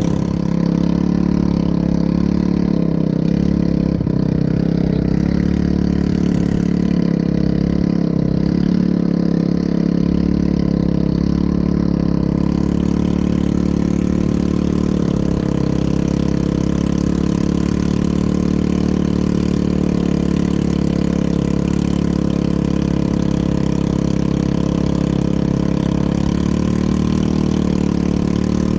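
ATV engine running at a steady, unchanging pitch throughout.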